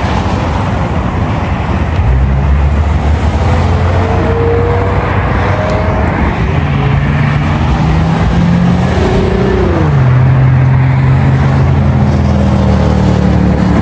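Car engine running at low revs with a deep, steady exhaust note that gets louder about two seconds in. Its pitch climbs slowly, then drops quickly near ten seconds, over a background of other cars' engine noise.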